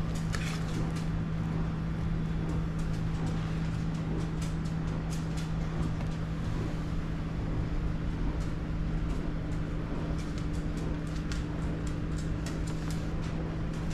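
A steady low hum throughout, with scattered light clicks and scrapes of a metal spatula and knife against the metal baking pan and plate as a slice of cake is cut out and served.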